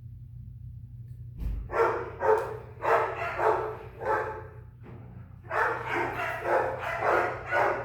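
A dog barking repeatedly, about two to three barks a second, starting about a second and a half in and pausing briefly near the five-second mark, over a steady low hum.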